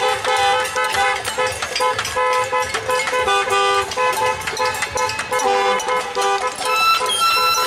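Car horns honking in overlapping, repeated blasts, mixed with many sharp knocks and clangs from noisemakers.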